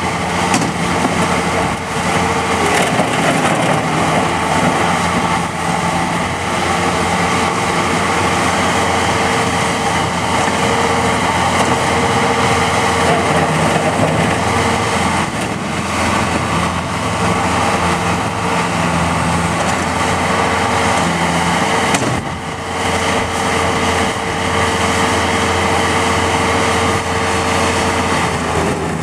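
Bobcat T180 rubber-track skid steer running steadily under demonstration, its diesel engine and machinery sounding continuously, with a brief drop in level about three quarters of the way through. The engine runs smooth, with nothing mechanically wrong by the seller's account.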